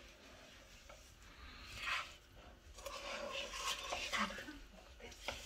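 A cooking utensil stirring and scraping rice cakes around a nonstick frying pan in several strokes, with a sharp knock against the pan near the end.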